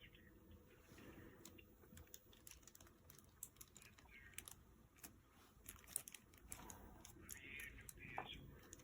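Faint, irregular plastic clicks and light knocks from a folding LED desk lamp being handled: its arm moved, rotated and flipped.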